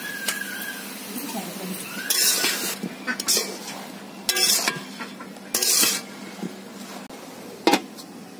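Metal spatula scraping and stirring salted taro stems in a metal wok in four short strokes. Near the end comes one sharp metallic clank as a metal lid is set on the wok to steam them.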